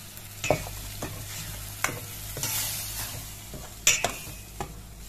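Metal ladle stirring a spiced tomato masala in a stainless steel pot, clinking and scraping against the pot a few times, loudest about four seconds in. Underneath, the masala sizzles, swelling briefly a little after two seconds in.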